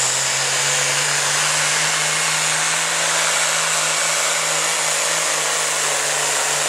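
Farmall pulling tractor's diesel engine running flat out under load as it drags the weight sled, held at an even pitch against its 3250 rpm limit. It is a loud, steady exhaust roar with a faint high whine over it.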